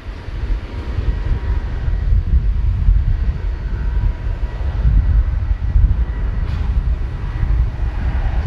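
Boeing 737-700's CFM56-7B turbofan engines running as the airliner rolls along the runway: a steady low rumble with a faint high whine over it.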